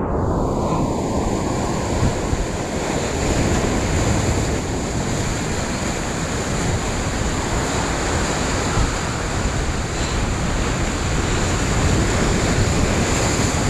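Ocean surf washing and breaking over shoreline rocks, a steady churning wash with wind noise on the microphone.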